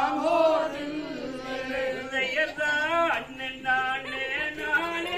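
A man singing a Tamil Valli Kummi folk song in long, held melodic phrases, the song that the dancers step to.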